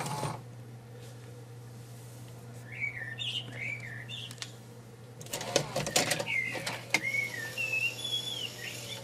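Open VCR tape-transport mechanism running with a low hum, and a run of sharp mechanical clicks a little past halfway. Short chirping whistles rise and fall over it several times.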